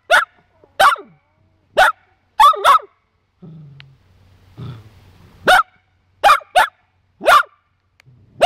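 Small long-haired dog barking at a hedgehog in front of it: about ten short, sharp single barks, a quick string at first, a pause of a couple of seconds, then another string.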